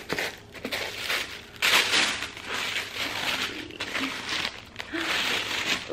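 White tissue paper in a shoe box rustling and crinkling as it is lifted and unfolded by hand, in irregular bursts, loudest about two seconds in.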